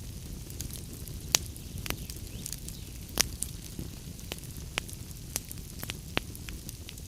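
Wood fire crackling in a fireplace: a steady low rumble of burning with scattered sharp pops and snaps, the loudest about a second and a half in and another near the middle.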